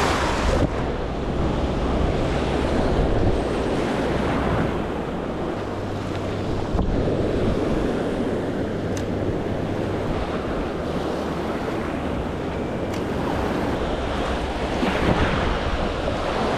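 Ocean surf washing through the shallows, swelling louder every few seconds as small waves break and run up the beach, with wind buffeting the microphone.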